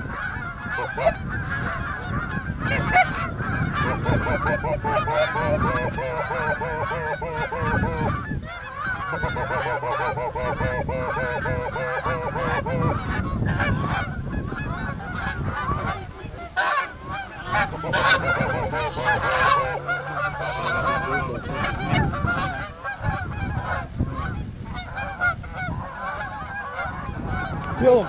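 A large flock of geese honking, many calls overlapping in a steady din.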